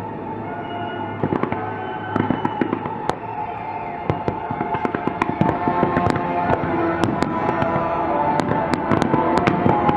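Fireworks display: many sharp pops and crackling bangs, coming thicker and louder from about halfway on, over music playing along with the show.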